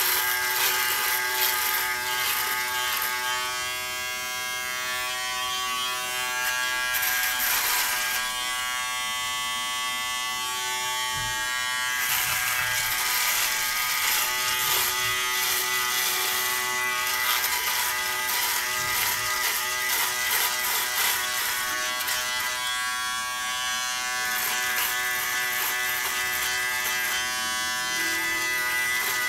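A Remington Wetech PF7580 electric foil shaver running with a steady motor hum. Its cutters rasp against stubble as it is drawn over the chin and neck, the rasp swelling and easing with the strokes.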